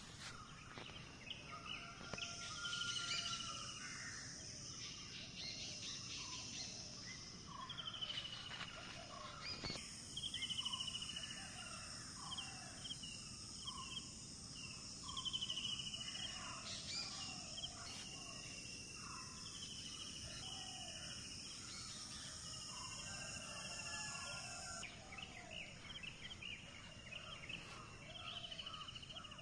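Outdoor ambience of birds chirping and calling again and again, over a steady high-pitched buzz that cuts off suddenly a few seconds before the end.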